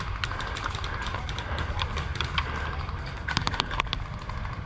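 Footsteps of an airsoft player moving over sandy ground, with gear rattling, under a low steady rumble; a quick cluster of sharp clicks comes a little over three seconds in.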